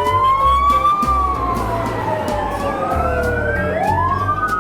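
Siren wailing: several tones slide up and down and overlap one another, over a steady low beat.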